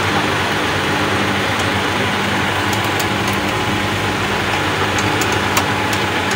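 Engine idling steadily with an even low hum, and a few light clicks during the work on the truck's front.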